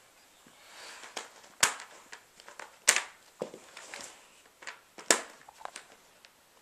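Plastic Trackmaster toy train track pieces being handled and snapped together, giving three loud, sharp plastic clicks spread across the few seconds among lighter taps and rattles.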